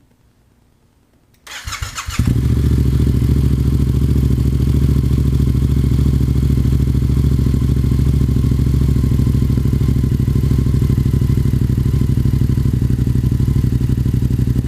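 Yamaha FZ-07's parallel-twin engine, breathing through a Yoshimura R-77 carbon full exhaust, cold-starting: about a second and a half in, the starter cranks briefly, and the engine catches and then idles steadily.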